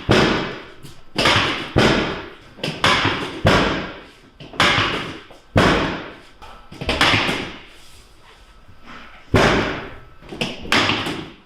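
A run of about ten sharp thuds, roughly one a second and irregular, with a pause of about two seconds past the middle: thrusts of a chiropractic adjustment on a patient lying on a treatment table.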